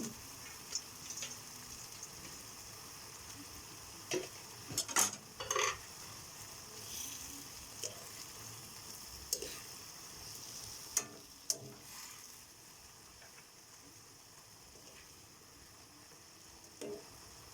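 Food sizzling in a cooking pan, a steady hiss, with a utensil stirring and knocking against the pan a few times, mostly in the first two-thirds.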